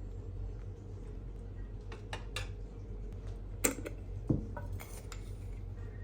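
Dishes and cutlery clinking and knocking: a few separate short clinks, the loudest two a little over half a second apart near the middle, over a steady low hum.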